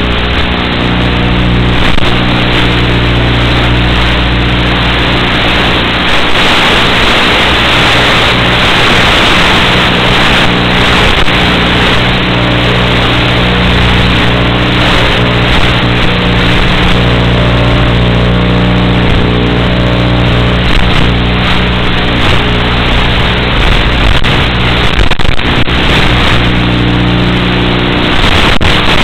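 Micro Pitts S1 RC biplane's motor and propeller running steadily in flight, picked up by the onboard FPV camera under a loud rush of air and hiss.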